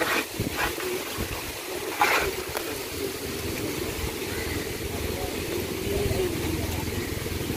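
Water moving around a small wooden canoe under a low steady rumble, with a few short sharp sounds near the start and one about two seconds in.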